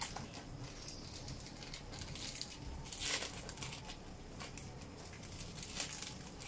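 Tomato sauce bubbling and popping in a wok, with the crinkling rustle of a plastic wrapper being peeled off a cheese slice, loudest about three seconds in and again near the end.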